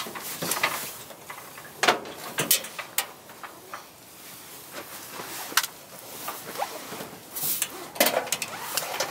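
Gear being handled and set down by hand: scattered knocks and clicks of stacked plastic storage crates and a portable fan heater's casing, with its power cord rubbing and tapping against the case near the end.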